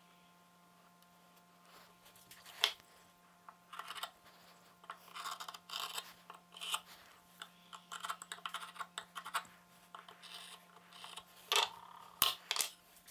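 Fingers handling and pressing a small wooden bow-tie key onto painter's tape on a wooden board: light scratching and rubbing, with a few sharp taps, one about three seconds in and several near the end.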